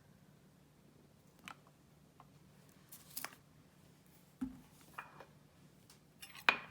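Quiet kitchen handling while mustard oil is poured into a bowl of marinade: a few soft, scattered clicks and taps of a bottle and bowl, then a louder run of sharp clinks against a dish near the end.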